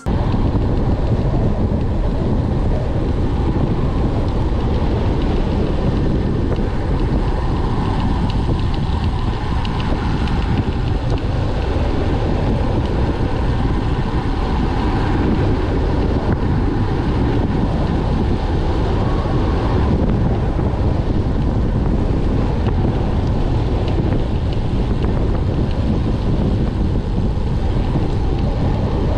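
Wind buffeting the microphone of a road bike rider on a fast downhill descent, a steady deep rush that doesn't let up.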